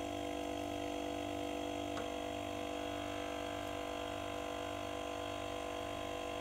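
Werther Sil-Air 15D silent airbrush compressor's refrigerator-type pump running steadily, filling its tank: a quiet, even hum with a few steady tones.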